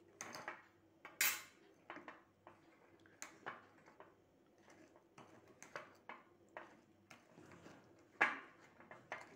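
Metal spoon scraping and clinking against a bowl while stirring thick dosa batter, in irregular strokes; the loudest knocks come about a second in and near the end.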